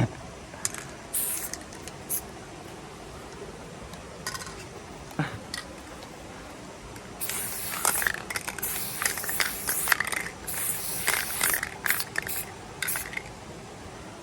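Aerosol spray paint can hissing in short bursts as a wall is painted: a few scattered sprays in the first half, then a quick run of many bursts from about halfway until near the end.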